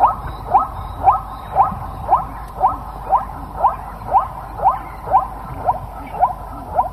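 Zebra barking: a long run of short yelping calls, each rising in pitch, repeated about twice a second, stopping near the end.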